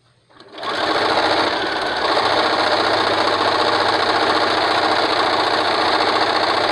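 Electric sewing machine starting about half a second in and then running steadily at speed, stitching a seam through two layers of fabric.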